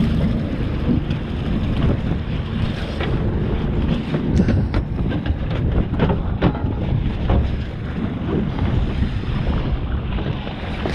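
Fishing boat at sea, its engine running under heavy wind buffeting the microphone, with a few sharp knocks and clatters in the middle.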